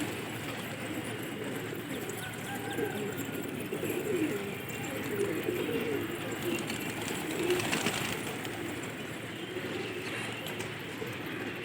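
Domestic pigeons cooing, several low wavering calls overlapping.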